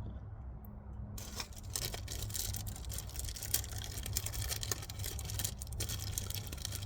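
Rustling and many light clicks of handling, starting about a second in, over a steady low hum.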